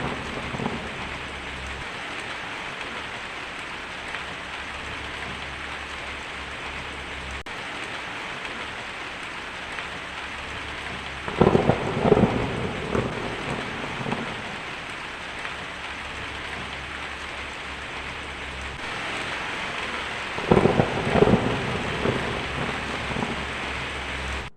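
Heavy rain drumming steadily on a tin roof, with two rolls of thunder, one about 11 seconds in and one about 20 seconds in, that rumble up loud and fade over a few seconds. The sound cuts off suddenly at the end.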